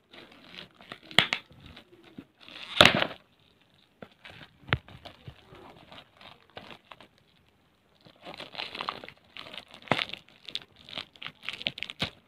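Clear plastic shrink-wrap crinkling and tearing as it is picked and pulled off a cardboard box, in irregular rustles and crackles. There is a louder tear about three seconds in, a quiet stretch with only a few clicks in the middle, and denser crinkling over the last few seconds.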